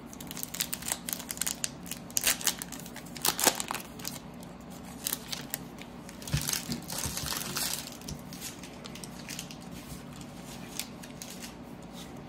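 Crinkling and crackling of a foil trading-card pack wrapper being handled, mixed with quick clicks and flicks of baseball cards being thumbed through in the hand. The crinkling is thickest a little past the middle.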